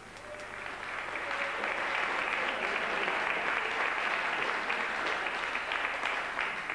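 A group of people clapping: the applause swells over the first couple of seconds, holds steady, then dies away near the end.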